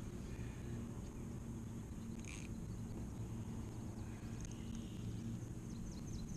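Outdoor river ambience: a low steady hum with a brief rustle about two seconds in, and a few faint bird chirps near the end.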